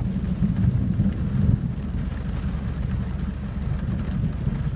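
Low rumble of thunder after a close lightning strike, heard from inside a car, heaviest in the first second and a half, then settling to a steady low rumble.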